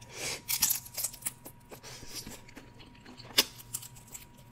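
Close-miked eating sounds of crab and shrimp: a short slurp, then wet lip smacks and clicks while sucking meat and sauce off the fingers, with one sharp smack about three and a half seconds in.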